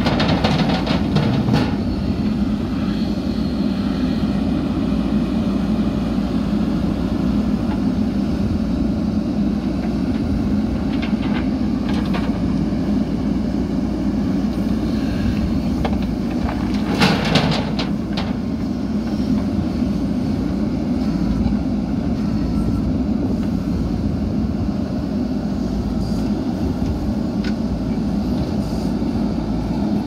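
JCB backhoe loader's diesel engine running steadily while it loads a tractor trolley. Sand and stone clatter into the steel trolley as the bucket dumps, just after the start and again a little past halfway.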